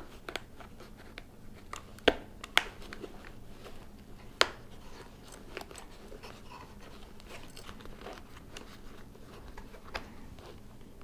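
Hands pressing foam-and-fabric helmet padding into a Shoei Neotec 2 shell: faint rustling of the pads with several sharp plastic clicks, the loudest about two and four and a half seconds in.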